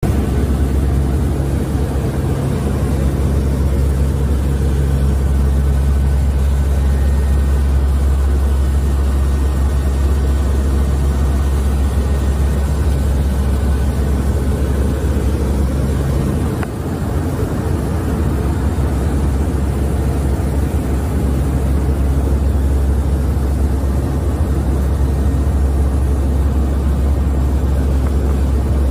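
Steady drone of a Lockheed WP-3D Orion's four Allison T56 turboprop engines and propellers, heard inside the cockpit: a loud low hum with several steady tones above it, dipping briefly just past halfway.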